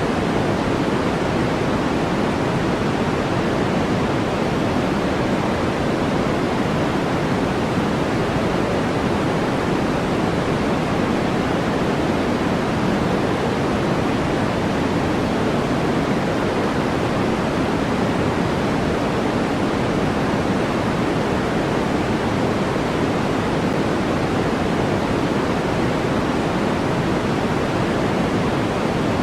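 Steady, unchanging synthetic noise, a continuous hiss weighted toward the lower and middle range, like pink noise, played as a sleep and focus aid.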